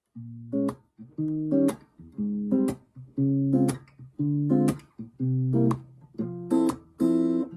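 Background music: an instrumental guitar passage, with chords struck in a steady rhythm of about one a second, each followed by a sharp accented strum.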